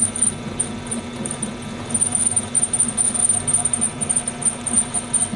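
Small hobby lathe running with its chuck spinning: a steady motor hum with a high whine, and an uneven, fluttering level that fits the vibration of a tailstock lifting under the cut.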